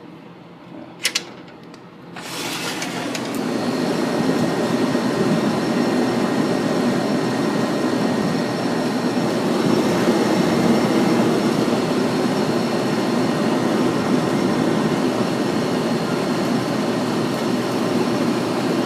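Two sharp clicks about a second in, then the running outdoor condensing unit of a 5-ton Trane XB13 air conditioner comes up loud: a steady rush of the condenser fan and compressor with faint high whining tones over it. This is the unit fitted with a new compressor and a new fan motor.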